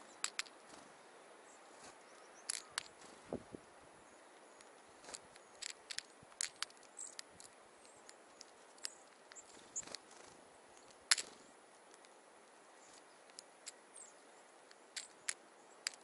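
Varied tit pecking seeds out of a small metal cup: irregular sharp clicks and taps of beak and claws on the metal and seeds, the loudest about eleven seconds in, with a duller thump about three seconds in.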